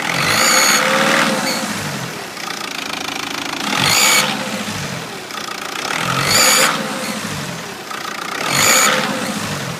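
VW 2.0 TDI BKP diesel engine revved four times over an idle, each rev carrying a high turbocharger whistle that rises and falls with it; the whistle comes from the turbo after its replacement.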